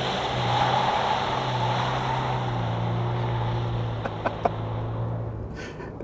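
Ford Ranger's 3.0-litre V6 turbo-diesel pulling hard, heard from inside the cabin, with the rear wheels spinning in two-wheel drive: a steady engine drone under a wash of tyre and road noise. It eases off near the end.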